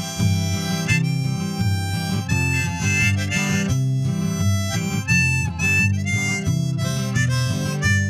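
Harmonica played from a neck rack, a melody of held notes that change every second or so, over a strummed acoustic guitar.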